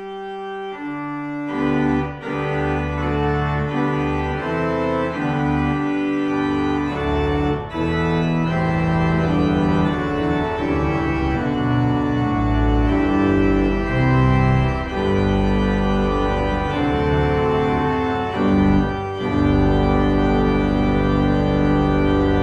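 Organ music: a Christmas medley played in held chords. It grows fuller, with a deep bass line coming in, about a second and a half in.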